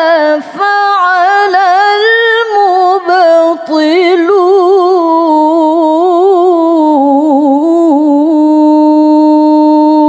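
A woman reciting the Quran in the melodic tilawah style, one drawn-out phrase sung with rapid, wavering ornaments. In the second half it settles into a long held note with a quivering trill.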